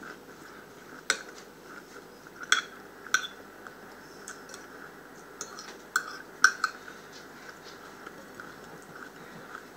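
Metal fork clinking and scraping against a ceramic plate while food is picked up, a handful of sharp, separate clinks, the loudest a little past the middle.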